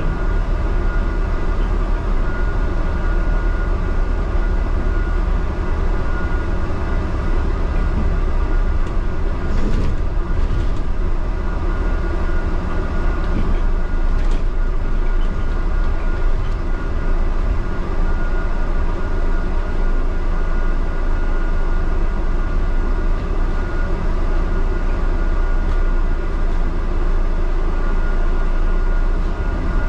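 Steady running rumble of a double-decker bus under way, heard from inside on the upper deck, with a constant high whine over it. A few brief rattles come about ten and fourteen seconds in.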